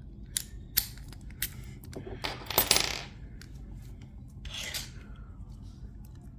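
Metal lockpicking tools and the Master Lock Pro Series padlock clicking and clinking, with a louder metallic rattle and scrape between two and three seconds in and a softer one later.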